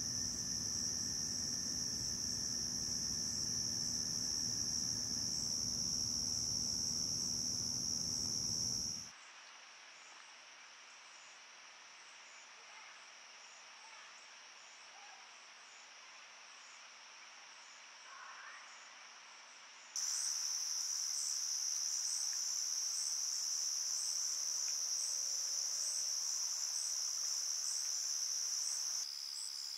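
Chorus of night insects, mainly crickets, giving a steady high-pitched trill. It drops away abruptly about nine seconds in, leaving a faint hiss, and comes back just as abruptly about twenty seconds in, now with a regular pulsing call over it.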